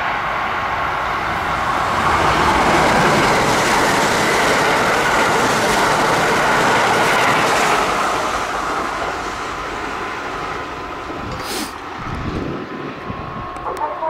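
A Kintetsu Urban Liner limited express electric train running through the station. Its rush builds over the first couple of seconds, stays loud for several seconds and then fades. A level-crossing bell keeps ringing under it.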